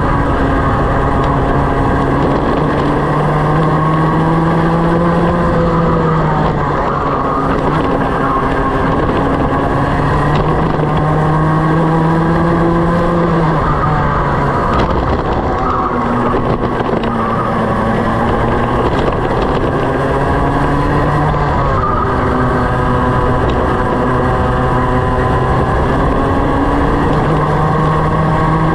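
Racing kart engine heard from on board at full race pace: its revs climb steadily along each straight and drop sharply when the driver lifts for a corner, several times over.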